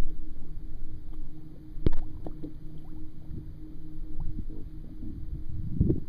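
Water lapping and gurgling right at a waterproof camera held at the surface beside a paddled canoe, with a steady low hum underneath. A single sharp knock comes about two seconds in, and louder splashy surges come near the end.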